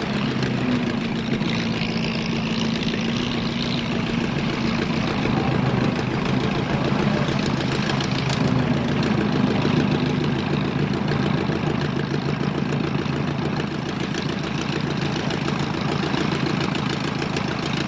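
Piston engine running steadily at an even speed, without revving up or down.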